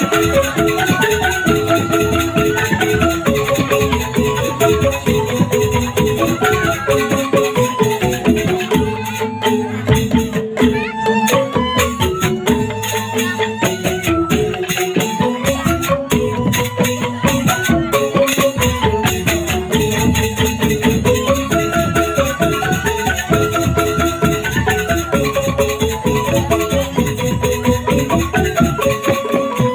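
Instrumental music: a melody of stepped notes rising and falling over a fast, steady percussive beat.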